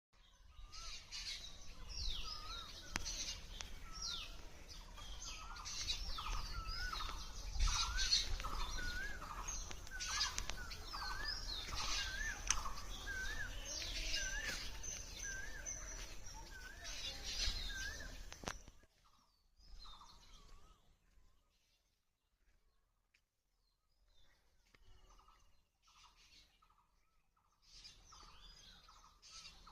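A chorus of wild birds calling, many voices overlapping: repeated short wavy whistled notes and quick falling chirps. It stops abruptly about two-thirds of the way through, leaving only scattered, fainter calls.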